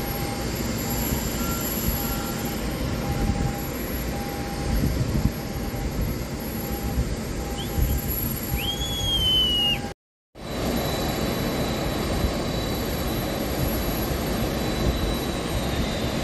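Steady jet noise from a Japan Airlines Boeing 787 on the apron, with a short beep repeating about twice a second and a brief whistle just before the sound cuts out for half a second about ten seconds in.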